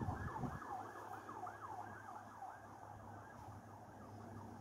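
Faint emergency-vehicle siren in a fast yelp pattern, about four falling sweeps a second, slowly fading. A low steady hum runs underneath, and a low rumble stops about half a second in.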